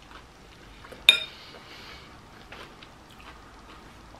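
A metal fork clinks sharply once against a ceramic bowl about a second in, with a brief ring. Around it come a few fainter clicks of the fork among the pasta salad.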